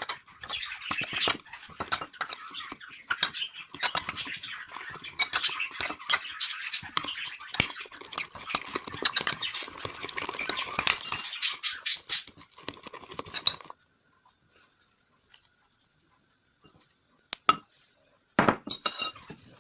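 A utensil stirring and scraping a slime mixture in a container, with frequent clinks against the sides. The stirring stops suddenly about 14 seconds in, leaving a few faint clicks and a brief burst of scraping near the end.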